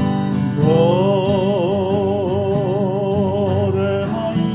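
A man singing to his own strummed acoustic guitar: about half a second in his voice slides up into one long note held with vibrato, then moves to a shorter note near the end, over steady strumming.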